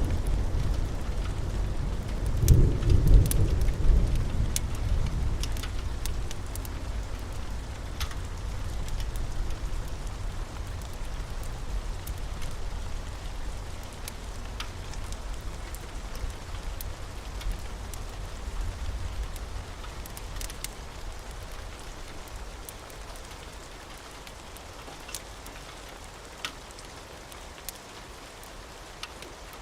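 A long roll of thunder, loudest about three seconds in and slowly dying away over the next twenty seconds, over steady rain, with scattered sharp pops and crackles.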